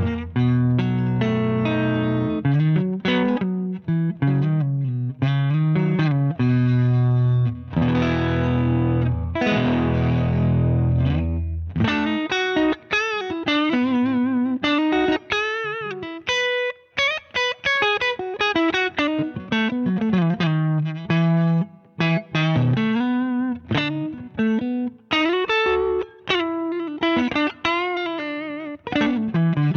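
Electric guitar played through a Danelectro Transparent Overdrive V2 pedal, with a mild overdrive. It starts with chunky chords and riffs, then about twelve seconds in it moves to single-note lead lines with bends and vibrato.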